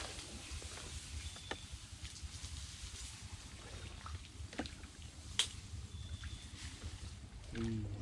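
Water trickling and dripping around a small rowboat being rowed along a channel, with scattered light clicks and a low rumble underneath. A voice starts near the end.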